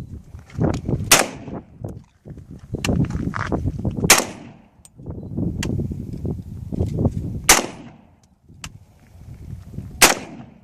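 M16 rifle firing four single shots about three seconds apart, each sharp crack trailing off in a ringing echo, with smaller knocks and low rumble between the shots.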